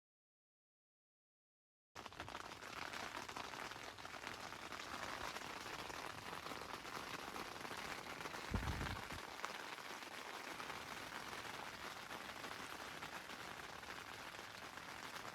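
Steady rain pattering, starting abruptly after about two seconds of silence, with a brief dull low thump a little past halfway.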